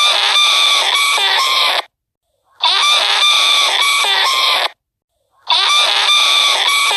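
Chickens clucking and calling in a short burst of about two seconds, repeated as a loop: the same burst sounds three times with a clean silent gap of about half a second between each.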